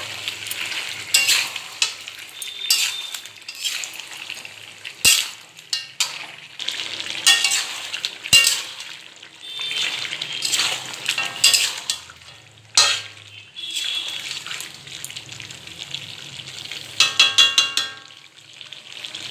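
Chicken and potatoes sizzling in oil in an aluminium kadai while a metal spatula stirs them, scraping and knocking against the pan in repeated strokes, with a quick run of clinks near the end. This is the meat being browned in its spices (kosha), just after the fried potatoes went in.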